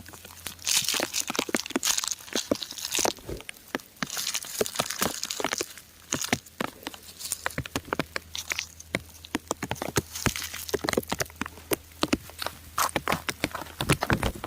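Raindrops pattering on crumbling rock: irregular sharp taps and clicks, with a few short stretches of denser hiss.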